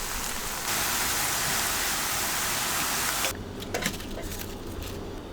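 Potato rings deep-frying in hot oil, a steady sizzle that cuts off suddenly a little past halfway, followed by quieter scattered crackles and ticks.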